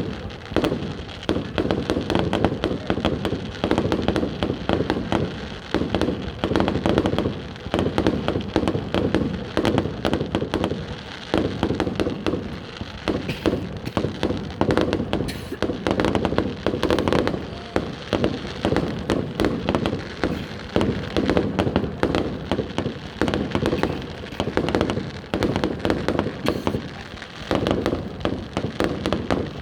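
Fireworks display: a dense, unbroken run of bangs and crackling shells.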